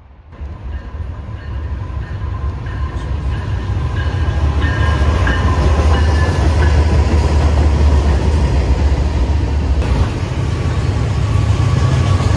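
BNSF diesel freight locomotives passing close by, with a deep engine rumble that grows louder over the first few seconds as they come up. Double-stack container cars then roll past.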